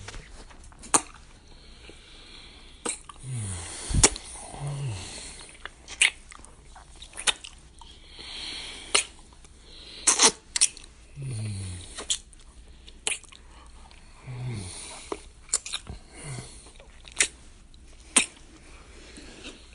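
Close-up kissing: wet lip smacks at irregular intervals with breathy hiss between them, and a few short low hums that fall in pitch.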